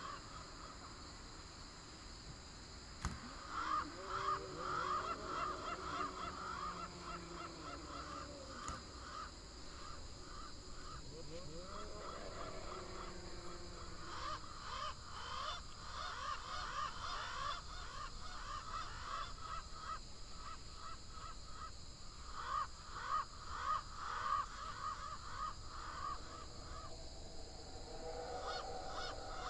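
Eerie horror-film sound design: rasping, cry-like sounds with pitches that slide up and down, over a steady high whine. It swells in places, most strongly a few seconds in and again about three-quarters through.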